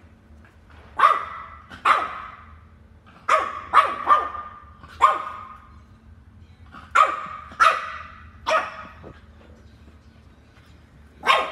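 A French bulldog barking at a longboard on the floor: about ten short, sharp barks in loose groups, with pauses of a second or two between them.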